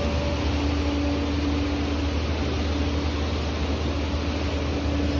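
Steady, even noise with a strong low hum and a faint constant tone, unchanging throughout.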